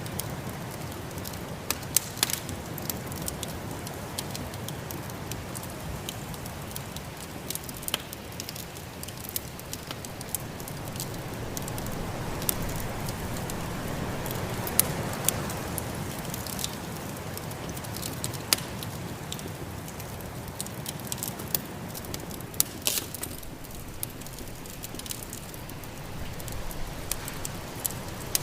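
Wood fire crackling and popping in a fireplace, with sharp pops scattered irregularly, over a steady low rush of storm wind that swells midway.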